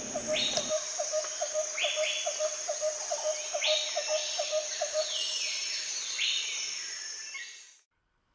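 Nature ambience of insects and birds: a steady high insect hiss, a regular clicking chirp about three times a second, and repeated falling bird-like calls. It fades out near the end.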